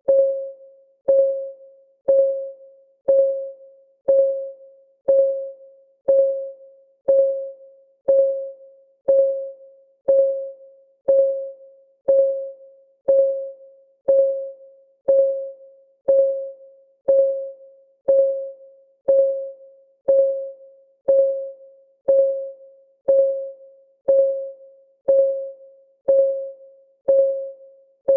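Countdown timer's clock-ticking sound: one short tick every second, steady and even. Each tick is at the same pitch and fades quickly.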